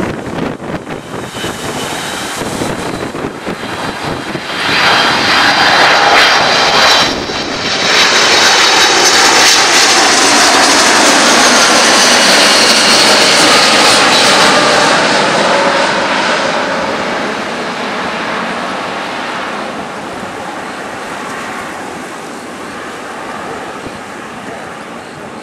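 Korean Air Boeing 777-300 passing close by at the runway end, its twin jet engines growing loud about five seconds in with a high whine over a heavy rushing noise. It stays loud for about ten seconds, then slowly fades away.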